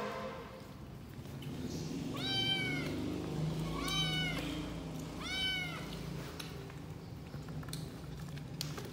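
Kitten meowing three times, each meow a short call that rises and falls in pitch, spaced about a second and a half apart.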